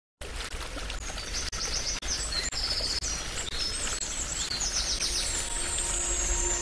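Birds chirping in quick repeated high trills over a steady background hiss, with brief dropouts about every half second. Near the end a high falling sweep and soft held tones come in as music begins.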